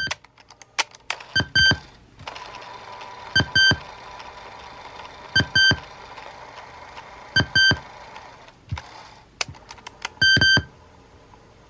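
Sony WM-EX655 Walkman's control beeps: a short double beep about every two seconds, each pair led by sharp clicks, over a steady hiss with a faint steady tone.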